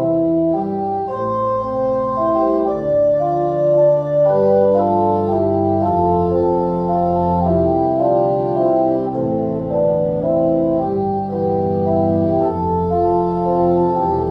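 Organ playing slow, sustained chords, the held notes changing about once a second.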